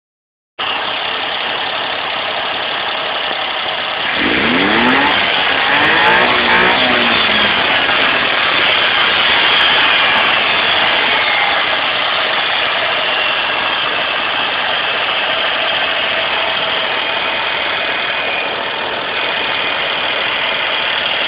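Supercharged Daihatsu Charade engine running, heard close at the carburettor's open intake with the air filter off. It is revved up about four seconds in, falls back, then runs steadily, with another rise near the end.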